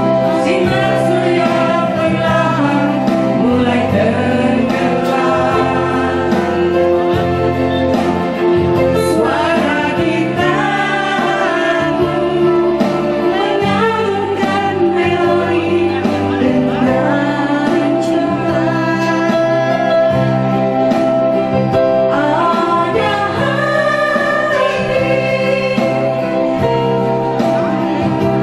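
A woman singing a slow song into a handheld microphone, amplified through a PA loudspeaker over instrumental backing music.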